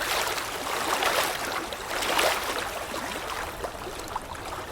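Sea water washing and gurgling at the shore, swelling loudest about two seconds in.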